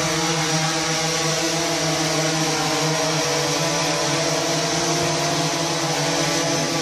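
Small multirotor drone's electric motors and propellers running, a steady buzzing hum with an even whoosh of rotor air.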